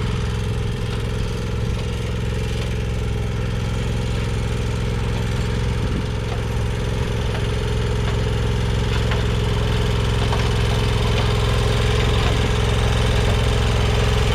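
Commercial walk-behind lawn mower engine running steadily, growing gradually louder toward the end as the mower is driven back in.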